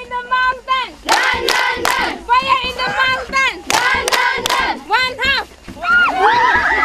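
A group of girls singing together in unison while clapping their hands in time. Near the end the song gives way to many voices at once.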